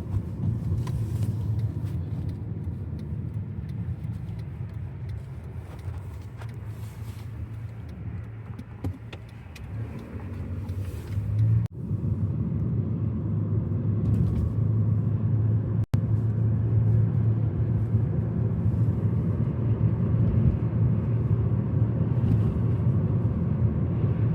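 Car engine and road noise heard from inside the cabin while driving, a steady low rumble. It eases off about eight seconds in, then comes back louder from about twelve seconds. The sound cuts out for an instant twice.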